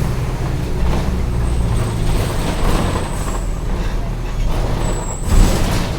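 Mercedes-Benz OF-1722M city bus running, its diesel engine a steady low drone, with a thin high squeal that comes and goes twice. About five seconds in there is a short, louder burst, typical of the bus's air brakes.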